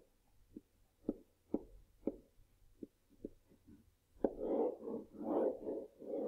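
Pen or stylus strokes on a writing surface as a word is hand-written: a string of short, faint taps and ticks. About four seconds in comes a longer stretch of continuous stroking as a box is drawn.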